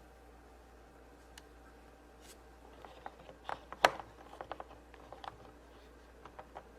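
A small plastic toy and its packaging being handled: scattered light clicks and taps, with the sharpest click a little under four seconds in.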